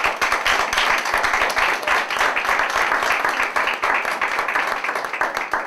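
A small audience applauding: dense, steady hand clapping.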